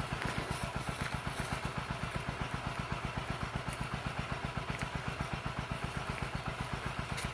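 A small engine running steadily, with an even low pulsing of about ten beats a second.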